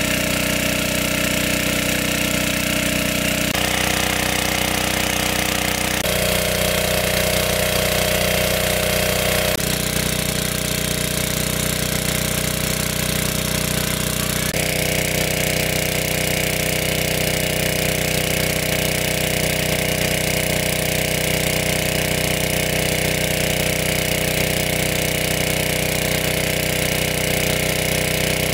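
Small engine-driven portable water pump running steadily at a constant speed while it pumps water. Its note shifts abruptly a few times.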